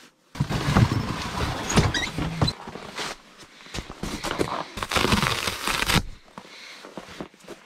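Rustling and handling noise from interlocking foam floor mats being picked up and shifted, with short squeaks of foam rubbing on foam and a few knocks. It dies down after about six seconds.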